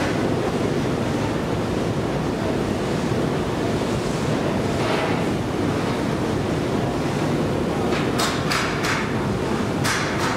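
Steady low noise of a long metro-station escalator running, heard while riding down it. About two seconds before the end comes a quick run of short hissing clicks, and a few more follow near the end.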